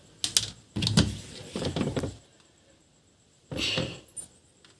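A semi-automatic washing machine being handled: a few short clicks and knocks, a quiet gap, then another cluster near the end.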